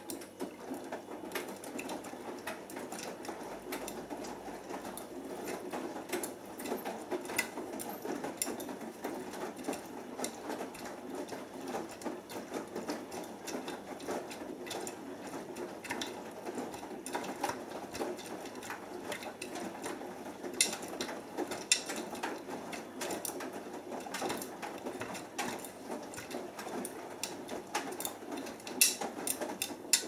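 Beko WMB81445L washing machine's drum tumbling a load of wet clothes during the main wash, with a steady churning and many small clicks and knocks. It starts suddenly and stops at the end, where the drum pauses between turns.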